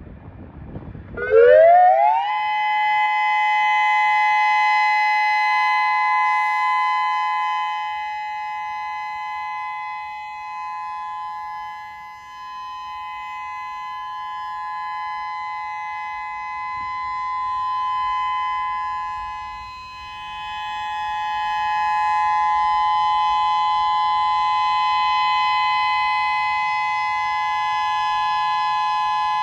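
Whelen WPS-3000 electronic outdoor warning siren sounding its alert tone. It rises in pitch about a second in, then holds a steady two-note tone, its loudness slowly swelling and dipping.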